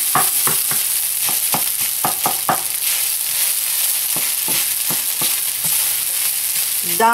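Fried rice with natto sizzling in a hot frying pan as it is stirred, with frequent irregular clicks and scrapes of the spatula against the pan.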